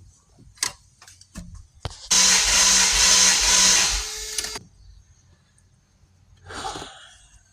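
Starter motor cranking a Toyota T100's V6 for about two and a half seconds, then stopping abruptly, during a compression test on cylinder 4 with its spark plug out. A few sharp clicks come before the cranking.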